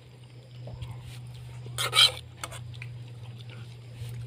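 A metal spoon scraping and clinking against a metal cooking pot as rice is scooped out, with one loud clatter about two seconds in and lighter clicks around it, over a steady low hum.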